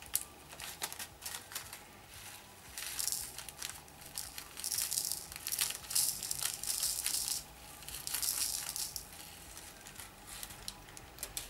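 Tiny square resin diamond-painting drills poured from a plastic bag into a plastic tray: a patter of little clicks coming in several pours.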